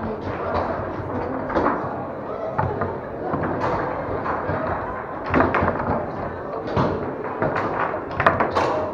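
Foosball play on a Tornado table: the ball knocked by the plastic players and rattling off the walls, rods clunking, with sharp knocks, the loudest about five seconds in and near the end, over steady background chatter of voices.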